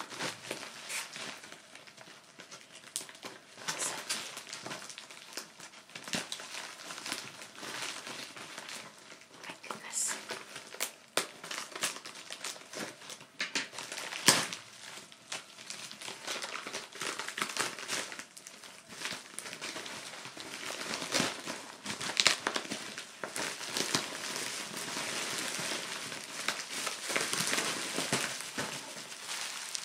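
Plastic packaging being crinkled and unwrapped by hand, a steady run of irregular crackles and clicks. There is a sharp loud snap about halfway through, and the crinkling grows denser near the end.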